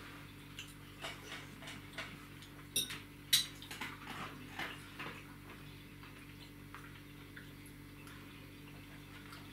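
Cutlery clicking and clinking on plates at a meal: a scatter of light taps in the first half, the two sharpest about three seconds in, over a steady low hum.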